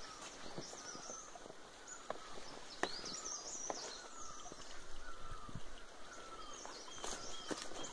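Forest birds singing: repeated high, stepped whistled phrases over a lower, falling note, with scattered crunches of footsteps on dry leaves and stones.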